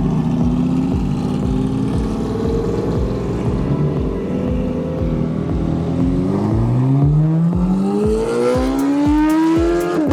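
A sports car's engine pulling away under hard acceleration. Its pitch holds fairly level for about six seconds, then rises steadily for about four seconds and drops suddenly at an upshift near the end.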